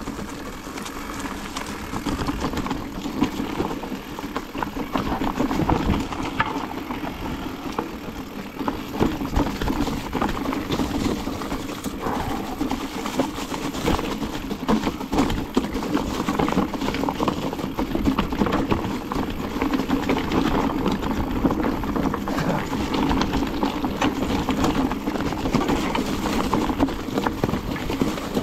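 Mountain bike rolling fast down a rough forest trail: steady tyre noise over stones and dry leaves, with the bike rattling and knocking over the bumps.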